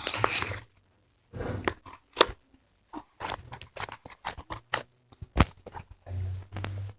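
Slime being squeezed and worked by hand, giving an irregular string of wet squelches and sharp clicking pops.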